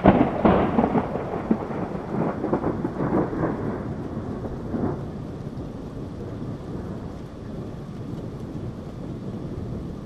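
A thunderclap cracking and rumbling, loudest at the start and fading out about five seconds in, with steady rain under it that carries on alone afterwards.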